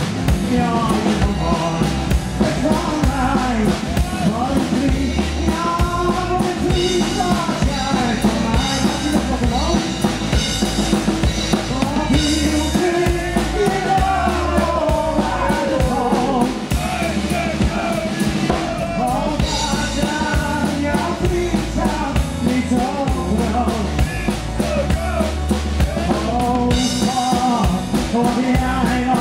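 Live band playing a song at full volume: a drum kit keeps a steady beat under acoustic and electric guitar, with a melody line carried over the top throughout.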